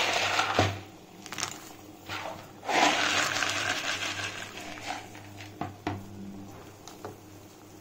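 Dried soya chunks being tipped into a steel bowl of hot water, making a rush of small splashes. It is loudest about three seconds in and is followed by a few light clicks and knocks.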